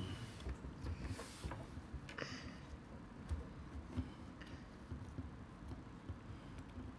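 Faint, scattered clicks and scrapes of a plastic glue bottle being handled as its cap is twisted and worked off.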